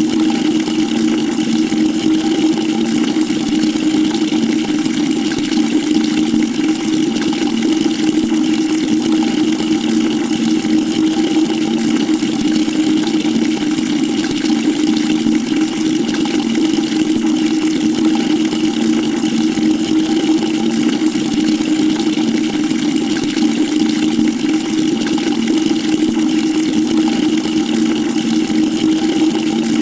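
Water running steadily into a bucket: a constant rushing pour with a low steady hum, unchanging throughout.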